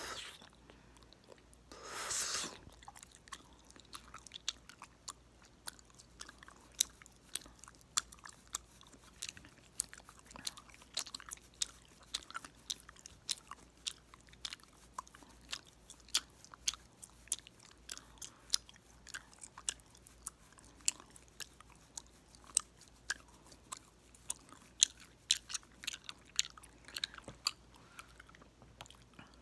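Gum chewed close to the microphone and snapped, with sharp, irregular pops a few times a second. A short hiss comes about two seconds in.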